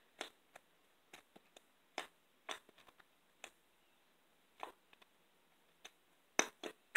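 Oily lavender cream slime squeezed and kneaded between the fingers, giving faint, irregular clicks and small pops about a dozen times, a little louder near the end.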